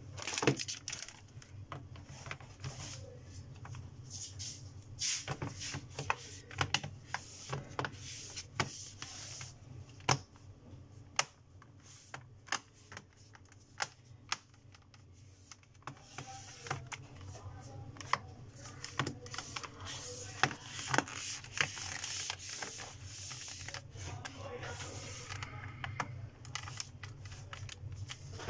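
Irregular clicks and light taps of a laptop's aluminium bottom cover being set back over the base and pressed down by hand, over a steady low hum.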